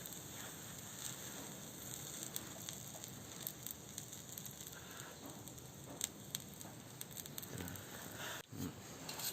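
Faint steady sizzling and crackling, with scattered small clicks, from a freshly cast lead battery terminal cooling in its wet-sand mould.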